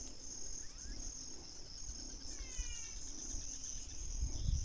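Steady high-pitched chorus of insects buzzing in the wet scrub, with a short bird call of a few quick descending chirps about halfway through and a low rumble near the end.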